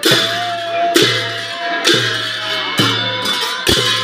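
Group folk singing for a circle dance, over a loud beat struck about once a second, each strike followed by a low boom.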